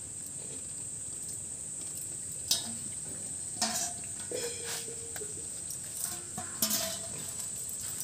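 Small steel bowls knocking and clinking against the concrete floor as they are handled, a few separate clinks from about two and a half seconds in, one ringing briefly. Behind them, a steady high-pitched insect drone.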